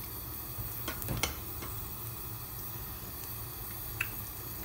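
Tomato-based stew simmering in a wok over a gas burner: a steady low rumble, with a few faint clicks and pops around a second in and one near the end.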